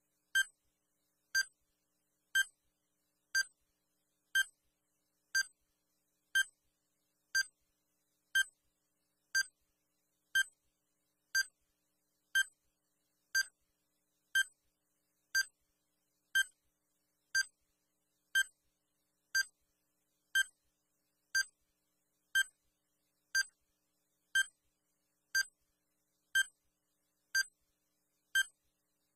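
Digital countdown timer beeping: a short electronic beep once every second, each marking one second ticked off the countdown.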